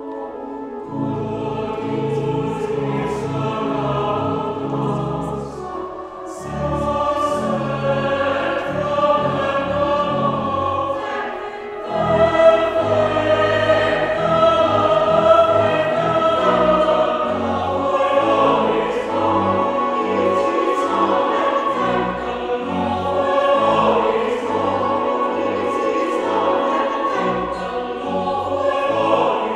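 Church choir singing a harvest hymn anthem in several parts over sustained low bass notes, swelling louder about twelve seconds in.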